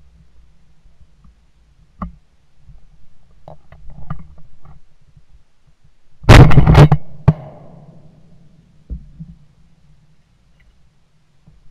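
Shotgun firing at a flying duck: a very loud blast about six seconds in, followed within a second by further shots, with an echo trailing off.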